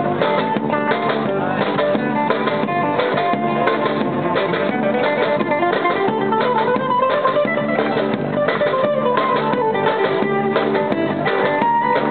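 Guitar playing a lively piece, with rapid, closely repeated strums under a picked melody line.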